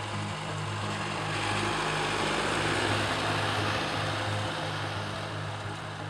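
A tractor pulling a tillage implement through soil passes close: its engine and working noise swell to a peak about three seconds in, then fade. Background music with sustained low notes plays underneath.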